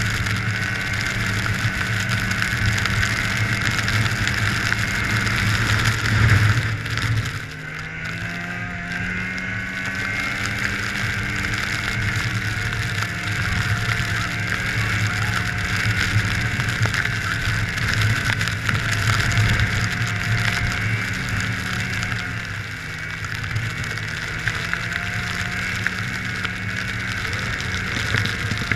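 Snowmobile engine running steadily under way. It eases off briefly about seven seconds in, then its pitch climbs back up.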